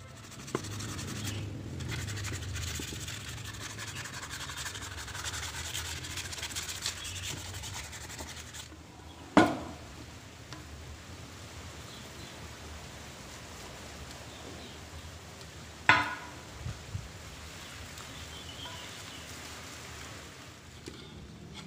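Gloved hands rubbing a wooden board, a steady scratchy sound like hand sanding that fades after about nine seconds. Two sharp knocks, about six seconds apart, are the loudest sounds.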